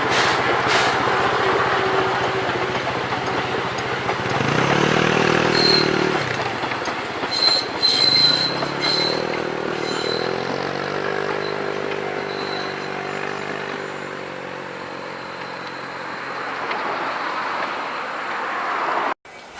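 Steam-hauled passenger train of the C11-190 passing, running in reverse: rolling wheel noise with a few rail clicks at first and brief high wheel squeals in the middle, over a layered low hum. The sound cuts off suddenly near the end.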